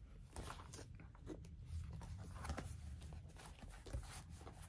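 Faint rustling and a few light taps of paper planner pages and inserts being handled.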